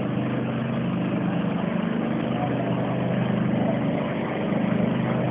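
A fire truck's engine running steadily, a low hum, over an even rushing noise.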